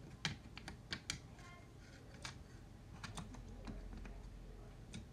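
A dozen or so light plastic clicks and taps, spread irregularly, from hands handling a model train locomotive on its track.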